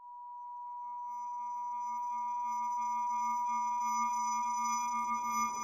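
Synthesized intro sound: a steady electronic sine tone with fainter higher tones and a low hum, fading in and slowly growing louder, with a whooshing swell starting to build near the end.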